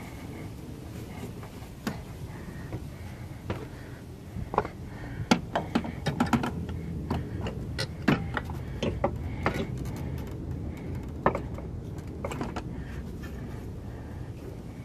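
Scattered light clicks and knocks of hands handling metal parts around the engine mount bracket in a car's engine bay, busiest in the middle, over a steady low hum.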